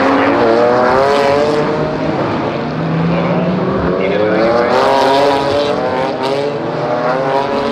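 GT4 race car engines accelerating on the circuit, their pitch rising twice as they pull through the revs, with a few sharp cracks around five to six seconds in.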